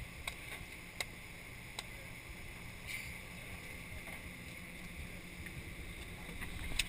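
Steady low hum of a sportfishing boat's engine with light wind on the microphone, broken by a few sharp clicks in the first two seconds and a louder knock near the end.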